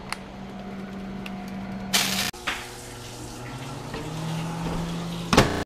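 Steady low hum of kitchen appliances. It is broken by a short loud rush of noise about two seconds in and a loud rattling clatter near the end.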